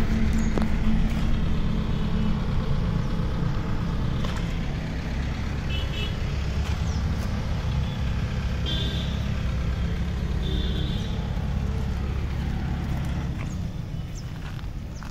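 Diesel tractor engine idling steadily, growing slightly fainter toward the end.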